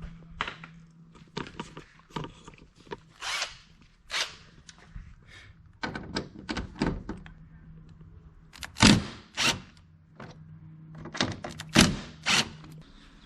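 Irregular clicks and knocks of hand tools and car parts being handled while Torx screws and bolts are undone, with the loudest knocks coming in pairs about nine and twelve seconds in.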